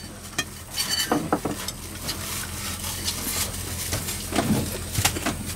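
Bowls, chopsticks and dishes clinking and knocking during a meal, a scatter of short sharp clicks over a steady low hum.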